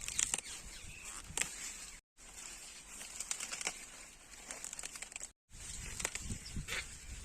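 Crinkling, crackling handling noises with many scattered sharp clicks over a steady hiss, broken twice by brief drops to silence.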